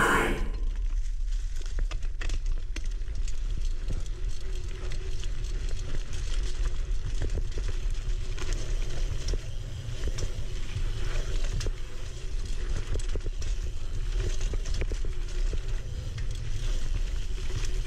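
Single-speed mountain bike ridden over dirt singletrack: a steady low rumble of tyres and air with many small clicks and rattles from the bike throughout.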